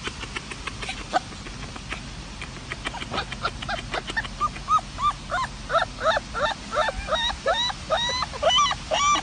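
Puppy giving short, high-pitched yips one after another, starting about three seconds in and coming about twice a second, growing more frequent near the end.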